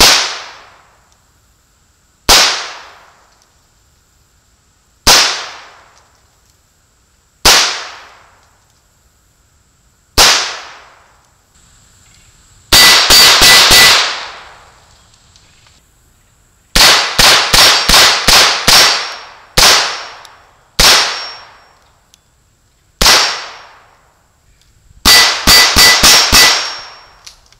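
.22 LR revolver shots, an H&R 926: five single shots a couple of seconds apart, then rapid strings of several shots with single shots between. The hanging steel plates ring faintly when hit.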